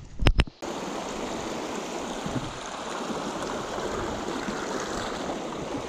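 Small trout creek flowing: a steady rush of running water. It opens with two sharp knocks and a brief dropout in the first half second.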